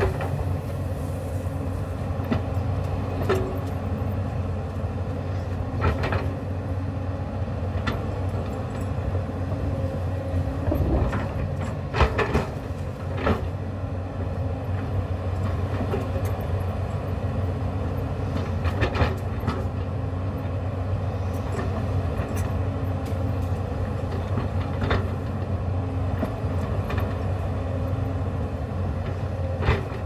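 Hyundai crawler excavator's diesel engine running steadily under working load, with irregular metallic clanks and knocks from the bucket and boom linkage as it digs into the hillside dirt, one every few seconds.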